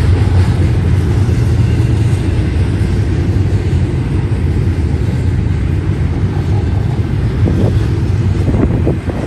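Double-stack intermodal well cars rolling past, a loud, steady rumble of steel wheels on rail.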